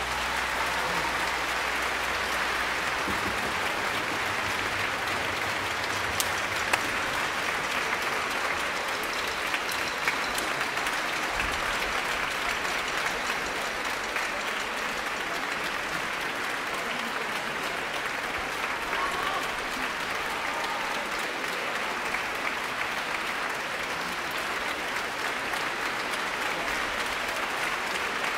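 Audience applauding steadily: dense, even clapping that holds at one level throughout.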